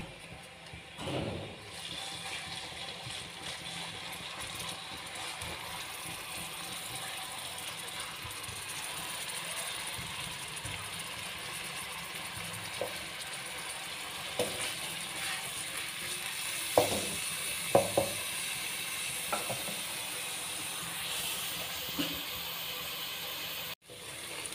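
Chopped onions sizzling in hot oil in an aluminium kadai, with a steady hiss. A wooden spatula stirs them, knocking the pan lightly a few times in the second half.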